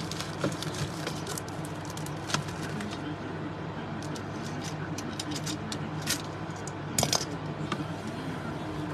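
Scattered clicks, taps and crinkles of trading-card boxes and packs being handled, with a denser cluster of clicks about seven seconds in, over a steady low hum.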